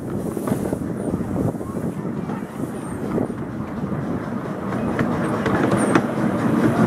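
Coaches of a 10¼-inch gauge miniature steam railway train rolling along the track, heard from on board: a steady rumble with scattered sharp clicks from the wheels on the rails, growing a little louder near the end.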